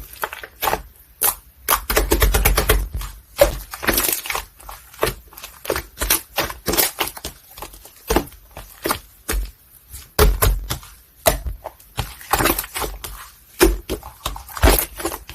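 White mochi-style slime being squeezed and pressed by hand, giving irregular wet pops and crackles of trapped air bubbles, with a dense run of quick pops about two to four seconds in.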